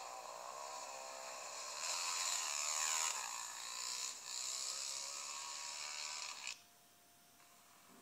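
Dirt bike engine revving, rising and falling in pitch, thin and without bass as it plays back through an old video camera's small speaker. It cuts off suddenly about six and a half seconds in, leaving a faint steady hum.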